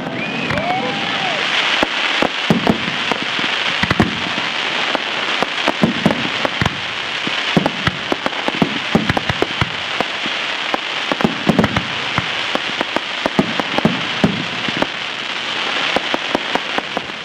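Aerial fireworks bursting into crackling stars: a dense, continuous crackle of countless tiny pops, with louder bangs scattered through. A brief whistle glides up and down about half a second in.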